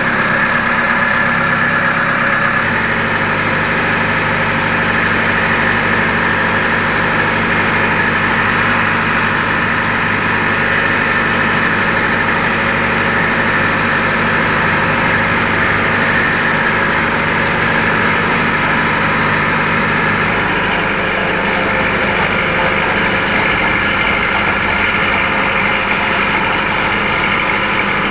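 Fishing boat's engine running steadily while the boat is under way, heard from on deck. Its note shifts slightly a couple of seconds in and again about twenty seconds in.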